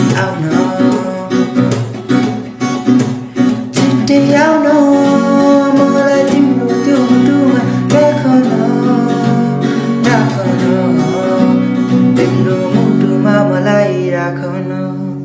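Acoustic guitar strummed and picked as the song's closing outro, with quick strum strokes at first, then ringing chords. The playing fades toward the end on a last ringing chord.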